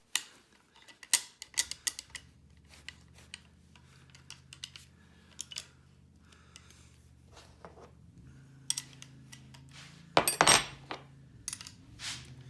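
Scattered light metallic clicks and clinks of hand tools and lopper parts being handled, with a louder cluster of knocks near the end. A faint steady low hum runs underneath.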